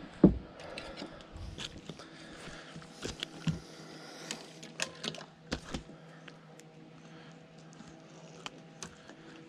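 A sharp thump about a third of a second in as the just-landed largemouth bass is swung in on the rod. This is followed by scattered small clicks, taps and rustles of hands gripping the fish and working the soft-plastic lure free of its mouth.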